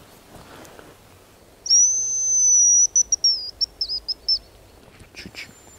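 Hazel grouse decoy whistle blown in imitation of the bird's song: a couple of seconds in, one long high whistle, then a quick string of short notes.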